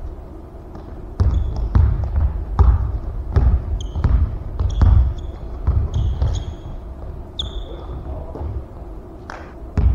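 Basketball dribbled on a hardwood gym floor: a run of heavy bounces starting about a second in, with short high sneaker squeaks on the court between them, and a couple more bounces near the end.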